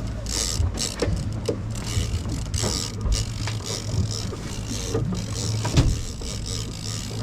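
Fishing reel being cranked against a hooked tuna, its gears clicking, over the steady drone of the boat's engine.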